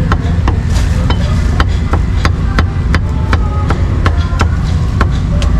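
Meat cleaver chopping cooked pork on a thick round wooden chopping block: about a dozen sharp knocks, roughly two a second, somewhat uneven.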